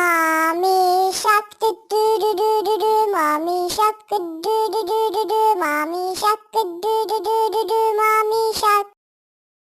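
A high-pitched child's voice singing an Arabic children's song in short phrases, with pauses between them; it stops about nine seconds in.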